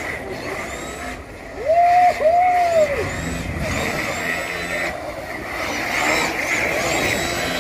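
RC drift cars running, their electric motors whining up and down in pitch as they throttle on and off. Two louder rising-and-falling whines come about two seconds in, over a steady din.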